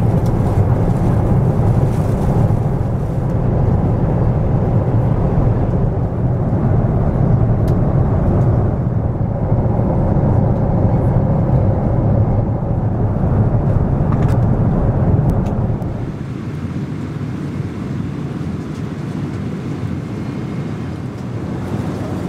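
Boeing 777 cabin noise in flight: the steady roar of engines and airflow past the fuselage, dropping somewhat in level about sixteen seconds in.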